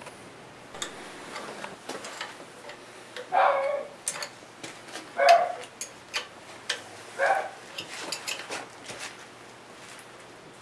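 Small metal clicks and clinks as hands fit the bolts and nuts of a welded steel exhaust manifold onto a Suzuki 425 twin-cylinder motorcycle engine. Three short, louder calls come about two seconds apart, the first a few seconds in.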